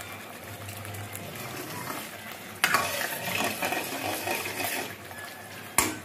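A steel ladle stirring and scraping thick tomato-onion masala as it fries in oil in a steel kadhai, with a low sizzle. The stirring gets louder about two and a half seconds in, and a sharp clank of ladle on pan comes near the end. The masala is at the stage where the oil starts to separate and bubble through it.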